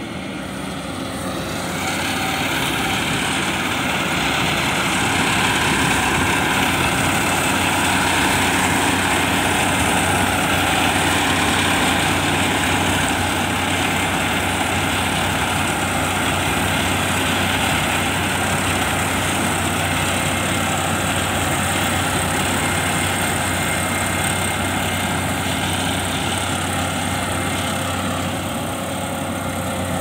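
Kubota KAR75 crawler combine harvester running steadily while cutting and threshing rice, its engine hum under a dense mechanical rush. It grows louder about two seconds in as it comes close, then eases slightly near the end.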